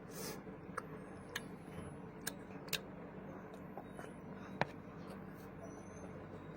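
Eating sounds: about five short, sharp clicks and taps scattered over a few seconds, with a faint steady hum behind them.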